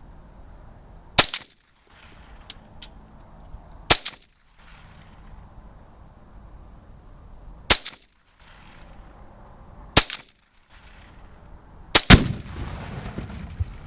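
Remington 597 .17 HMR rifle fired five times, a few seconds apart, with sharp cracks. The last shot near the end is followed at once by a second bang and about two seconds of rushing noise as the Tannerite target finally ignites.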